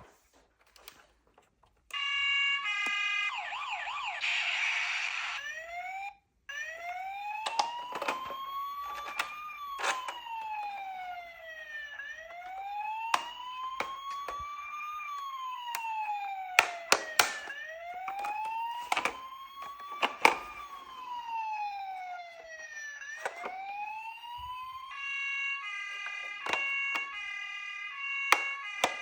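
Electronic siren of a toy emergency vehicle: a fast warbling tone, then a wail rising and falling every five to six seconds, then a steady electronic tone again near the end. A few sharp clicks sound over it.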